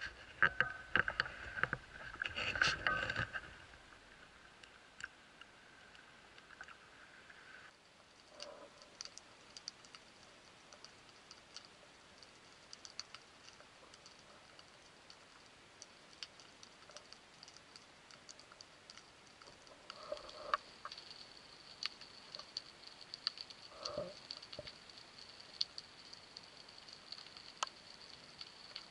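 Water splashing at the sea surface for the first few seconds. Then, heard underwater, a steady faint crackle of many small clicks and ticks, with a few soft knocks.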